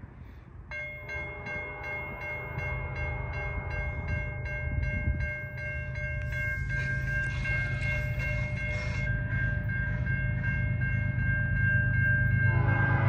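Freight locomotive's five-chime air horn, a Nathan P5, sounding one long chord over the diesel rumble of the approaching train. The rumble grows louder throughout, and more, lower horn tones come in near the end.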